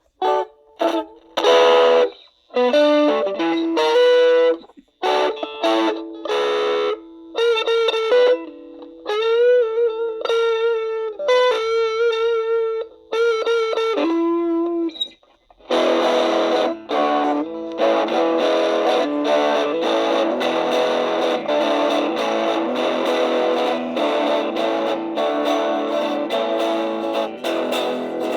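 Electric guitar played through a Marshall MS-2, a battery-powered 1-watt micro amp, with distortion. For the first fifteen seconds or so it plays single-note licks with bends and vibrato, then switches to steady strummed chords.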